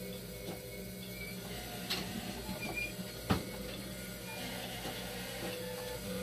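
Fresenius 2008-series dialysis machine running its rinse cycle: a steady mechanical hum from its pumps, with a sharp click about three seconds in.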